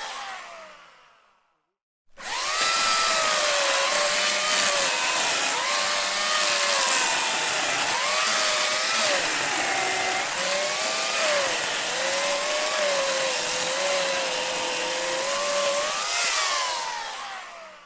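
Handheld electric saw cutting wood. Its motor winds down to a stop at first, starts up again about two seconds in, and runs with its whine repeatedly dipping in pitch as the blade bites into the wood. Near the end it is switched off and winds down with a falling whine.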